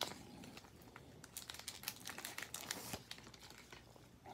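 Faint crinkling and light clicks of a baseball card pack's wrapper and the cards inside being handled.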